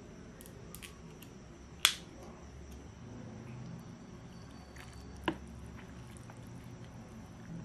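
Disposable wooden chopsticks snapped apart with one sharp crack about two seconds in, then soft wet squishing and dripping as ramen noodles are stirred and lifted out of the broth with them, with a lighter click of chopstick against the bowl later on.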